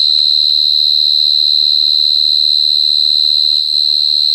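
Male giant burrowing cricket (Brachytrupes portentosus) calling at its burrow: a very loud, continuous high-pitched trill with a fine fast pulse, made by rubbing its two wings together. It is a male's call to bring a female to him.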